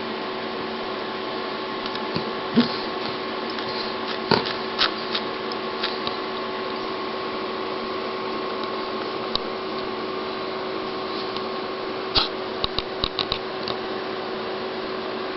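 Steady mechanical hum with scattered sharp clicks, including a quick run of several clicks about twelve seconds in.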